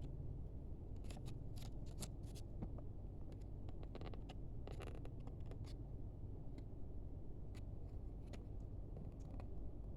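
Trading card pack being handled and opened: scattered short scrapes and clicks of card and wrapper, busiest in the first half, over a steady low hum.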